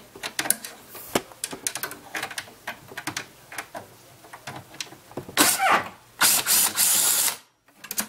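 A screwdriver backs out screws from a sheet-metal bracket inside a DLP television chassis, with irregular small metal clicks and ticks. A bit past the middle come about two seconds of louder metal rattling and scraping.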